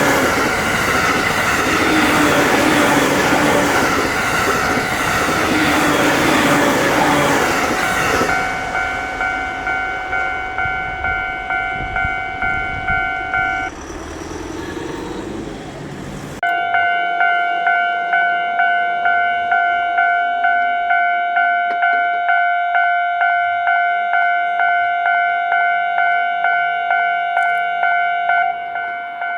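Japanese railway level crossing alarm ringing its repeated 'kan-kan' strikes while a train passes. The train's wheel and running noise is loud for the first eight seconds or so, then fades, leaving the alarm alone. The alarm breaks off about fourteen seconds in and starts again abruptly a couple of seconds later, at a little over one strike a second.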